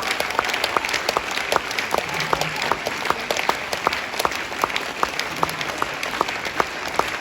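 Audience applauding steadily, with many individual claps standing out.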